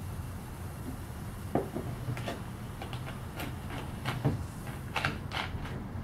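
Several light knocks and clicks as a plastic soda bottle is capped and set down on a table beside a small glass, over a low steady hum.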